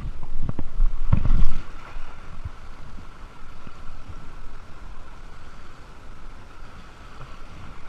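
Cast net thrown into a fast-flowing river: a loud rush of swing and wind noise that peaks about a second and a half in as the net hits the water, then the steady rushing of the river.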